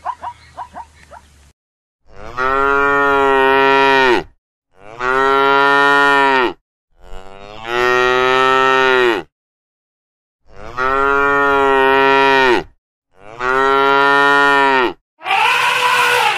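Cattle mooing: five long, loud moos of about two seconds each, with short gaps between them. They are preceded by a quick run of short yipping zebra barks in the first second and a half. Near the end comes the start of a harsher, shriller elephant call.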